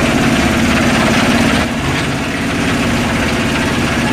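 Small wooden motorboat's engine running steadily with an even hum, under a rushing hiss of wind and spray as the boat pushes through choppy water.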